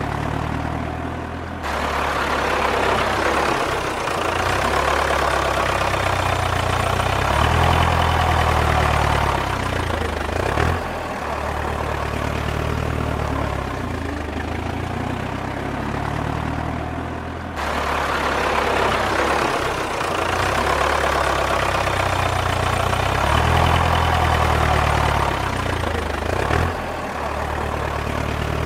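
Tractor engine sound effect running, swelling and easing in loudness, looped so that the same stretch repeats about sixteen seconds later.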